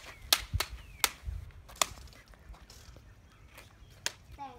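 Plastic toy lightsaber blades clacking together: five sharp strikes in the first two seconds, then a few fainter taps.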